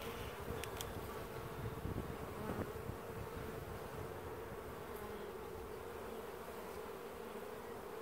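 Honeybee colony buzzing around an opened hive with a brood frame lifted out: a steady, even hum at one pitch.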